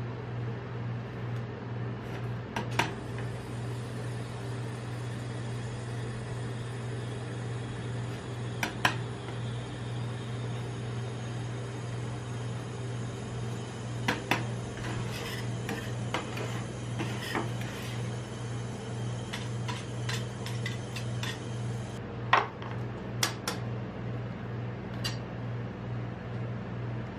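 Metal spatula scraping and tapping on the steel cold plate of a rolled-ice-cream machine over the plate's steady low hum. The taps are scattered, with a quick run of clicks in the last third and the sharpest tap a little after that.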